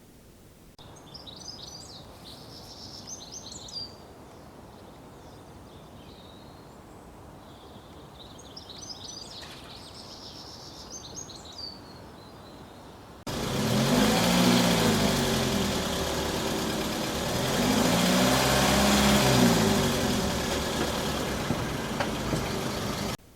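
Small birds chirping in two short spells over a faint hiss. About halfway there is a sudden cut to a much louder car driving past twice, its engine note rising and then falling with each pass, and the sound stops abruptly near the end.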